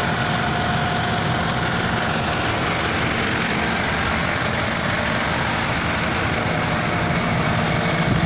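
Vehicle engine running, heard from inside the cabin: a steady, even drone.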